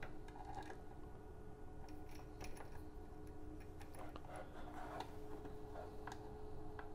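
Faint, scattered clicks and taps of a coaxial test cable's metal connector being handled and fitted to a receiver port on a vector network analyzer's front panel, over a faint steady hum.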